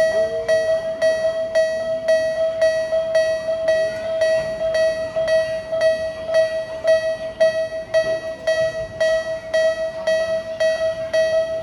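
Electronic bell of a Japanese level crossing on a mini-train line, ringing the same single tone over and over at about two strikes a second: the warning that a train is approaching and the barriers are down.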